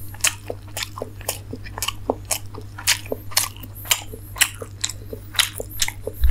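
Close-miked chewing of a steamed chicken momo: wet, clicking mouth sounds in a steady rhythm of about two a second, over a constant low hum.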